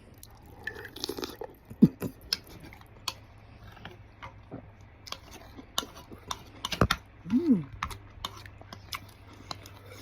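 Close-miked eating sounds: chewing soup-soaked tofu puffs and noodles, with wet mouth smacks and sharp clicks scattered throughout, the loudest about two seconds in and again near seven seconds. A brief hummed vocal sound rises and falls about seven seconds in.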